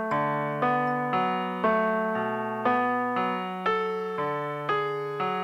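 Background music: an electric piano or keyboard playing a steady run of chords, about two a second, each dying away before the next.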